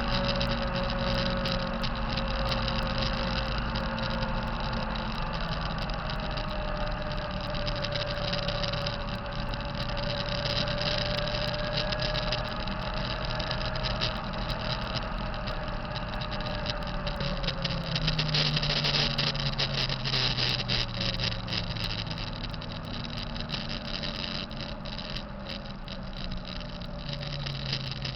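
2005 Kenworth T660's diesel engine running with a wavering whine over it, a bad sound that the owner puts down to the turbocharger. The engine note swells a little about two-thirds of the way in, then eases down.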